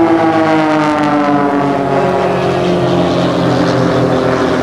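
Two Christen Eagle aerobatic biplanes flying overhead in close formation, their piston engines and propellers droning as they pull up into a vertical climb. The pitch falls steadily through the pass.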